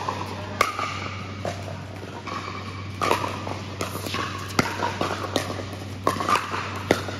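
Pickleball paddles striking a plastic pickleball in a doubles rally, sharp pops about once a second, with shoes scuffing on the court and a steady low hum underneath.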